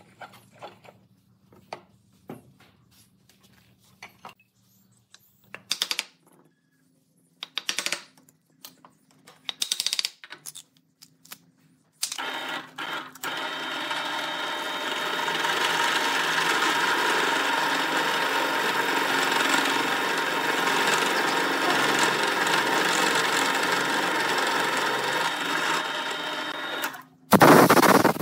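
Scattered handling clicks and a few short bursts of noise. Then, about twelve seconds in, a bench drill press starts and runs steadily for about fifteen seconds, its bit boring into a cast epoxy resin and bamboo tuber piece. A short loud burst comes near the end.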